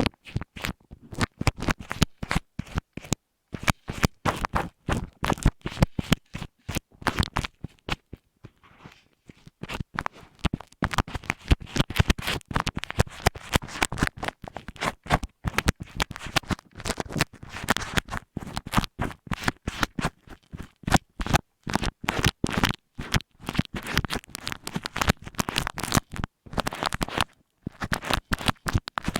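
Rapid, uneven scratching and rubbing strokes made right against an earphone microphone, with a pause about eight seconds in.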